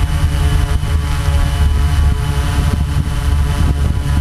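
Multicopter drone's electric motors and propellers buzzing steadily, heard from the camera on board, with a many-toned whine over a deep rumble of prop wash on the microphone.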